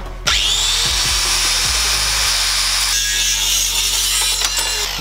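Angle grinder with a cut-off disc cutting through an aluminium flat bar held in a vise. It starts about a third of a second in, its whine rising as the disc comes up to speed, then runs steadily through the cut until just before the end.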